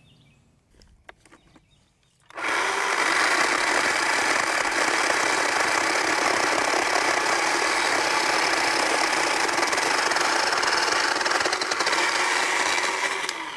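Worx WG323 20V cordless electric chainsaw starting about two seconds in and running steadily for about ten seconds, sawing through wood, then winding down near the end. A few light handling clicks come before it starts.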